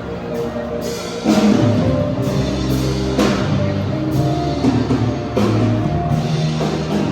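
Background music with drums that come in about a second in, over held instrument notes.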